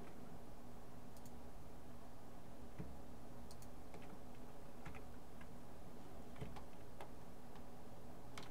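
Irregular computer mouse clicks and key taps, a dozen or so scattered through the seconds, over a steady low electrical hum from the computer.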